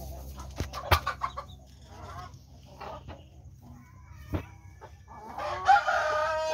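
Chickens clucking in a coop, with a couple of sharp knocks about a second in. A rooster crows loudly from about five seconds in, the loudest sound.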